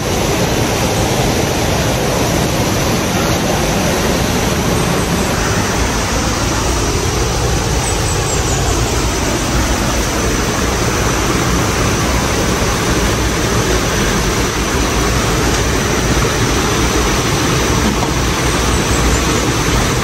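Steady, loud rush of water, an even unbroken noise with no pauses or changes.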